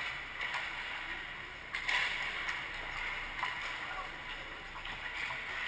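Ice hockey skates scraping and hissing on the ice, with a sharp clack a little under two seconds in and a few lighter knocks.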